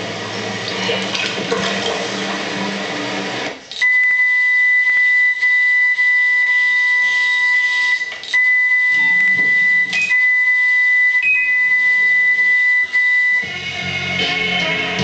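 Music, cut off about three and a half seconds in by a steady, high electronic tone that lasts nearly ten seconds with a few brief breaks and a short higher-pitched blip near its end; then the music returns.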